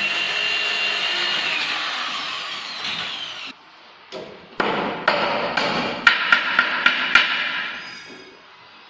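A tool runs steadily for about three and a half seconds and stops. After a short pause, work noise resumes with a quick run of about five sharp hammer knocks on wood during staircase carpentry.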